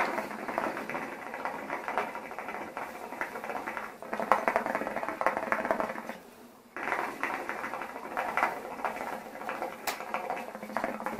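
Hookah water bubbling in the base as a long draw is pulled through the hose, breaking off briefly about six seconds in before the bubbling starts again.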